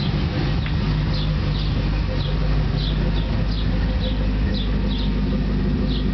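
Ford Thunderbird 4.6L DOHC V8 idling steadily through a true dual exhaust with an X-pipe and Flowmaster 40 mufflers, a low, even rumble. Short high chirps repeat over it about twice a second.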